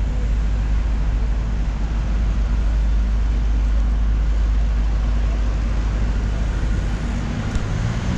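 Street traffic noise, a steady low rumble.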